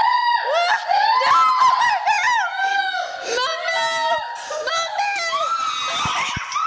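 High-pitched shrieking and laughter from young women, several voices overlapping in swooping squeals. A few short bumps near the end.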